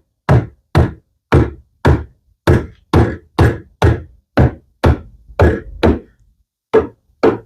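Repeated mallet blows on a wooden frame-and-panel assembly, about two a second with a short pause near the end, knocking a mortise-and-tenon joint open at one end of the frame.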